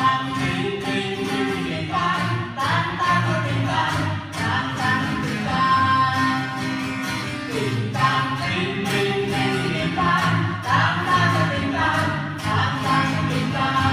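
A song: singing over instrumental backing with a steady beat.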